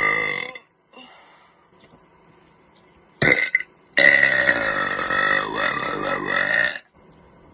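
A person's loud, drawn-out burps: one trailing off in the first half second, a brief loud sound about three seconds in, then a long burp of nearly three seconds starting about four seconds in, with another burp beginning at the very end.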